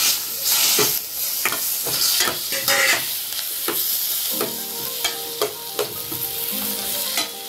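Chopped tomatoes and onions sizzling in hot oil in a stainless steel kadai while a spatula stirs them, with repeated scrapes and knocks of the spatula against the pan.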